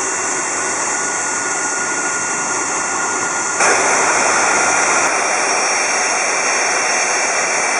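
Boeing 747-400's Rolls-Royce RB211 turbofans running steadily at low power as the jet taxis, a continuous whine and rush of jet noise. About three and a half seconds in the sound steps up louder and brighter.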